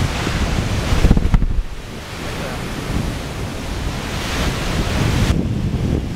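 Steady wind buffeting the microphone over the rush of ocean surf, with a quick run of loud low thumps about a second in.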